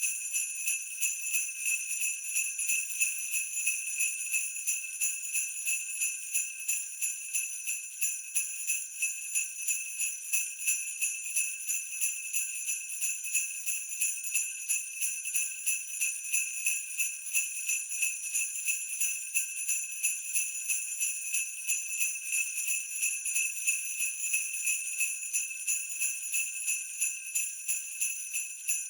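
Sleigh bells jingling in a steady, even rhythm of about two to three shakes a second, without a break.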